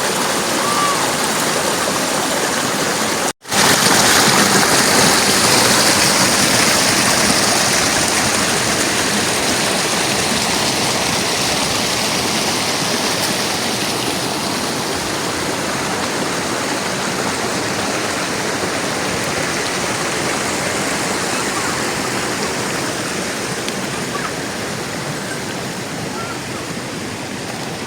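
Rushing water of a mountain stream or waterfall, a loud steady rush. It drops out for an instant about three and a half seconds in, then carries on slightly louder and slowly eases.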